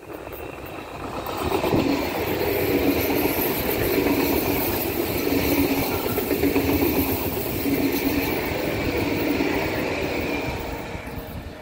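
SBB RABe 503 (ETR 610) electric tilting train passing close by. A rolling rumble of wheels on rail builds over the first two seconds, holds steady with a hum under it, and fades near the end.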